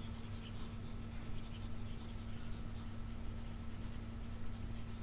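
Pen stylus scratching and ticking lightly across a writing tablet as handwritten annotations are erased, over a steady low electrical hum.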